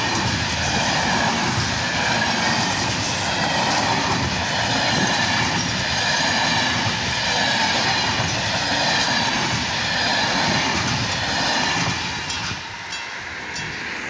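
Covered sliding-wall freight wagons rolling past close by, a steady loud rumble and clatter of wheels on rails. About twelve seconds in, the last wagon goes by and the noise drops and thins as the train moves away.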